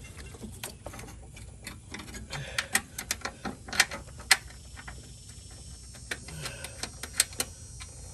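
Scattered sharp clicks and taps of hand work on the fittings and lines around a brake master cylinder and booster, irregular rather than rhythmic. A few louder clicks come near the middle and again about seven seconds in.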